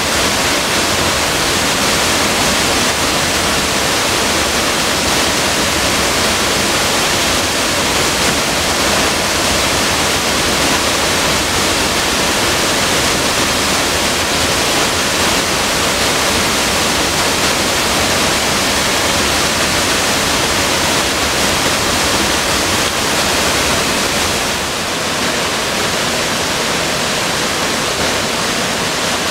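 Waterfall pouring in several streams over a mossy rock ledge into a pool: a loud, steady rush of falling water. It turns slightly quieter and duller near the end.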